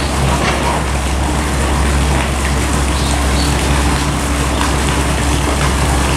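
Steady, loud drone of construction machinery running: a low engine hum and a held tone over a dense hiss. It is the construction noise that has unsettled the polar bears all morning.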